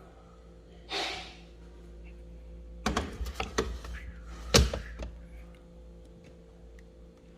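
A brief swish, then a run of clicks and knocks, with one louder thunk about four and a half seconds in, over a low steady hum.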